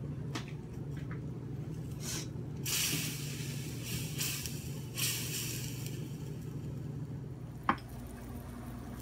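Zucchini in a saucy stir-fry sizzling in a stainless steel frying pan, stirred with a wooden spoon, with two bursts of hiss about three and five seconds in. There is a single sharp tap near the end, over a steady low hum.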